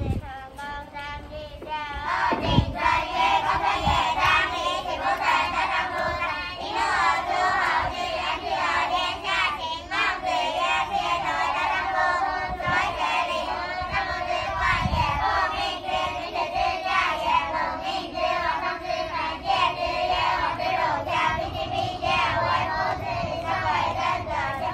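A group of young children singing together in unison, starting about two seconds in.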